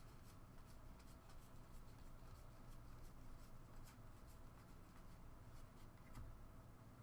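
Near silence with faint, scattered rustles and light ticks of trading cards being handled and slid through the hands, over a low room hum.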